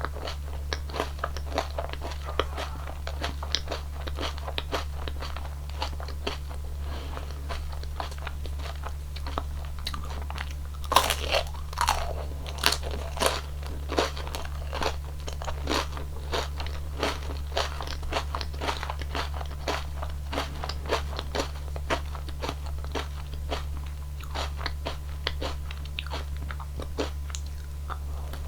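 Close-miked crunching and chewing of a wafer-cone ice cream. Many small crisp crunches run throughout, with a louder run of bites about eleven seconds in, over a low steady hum.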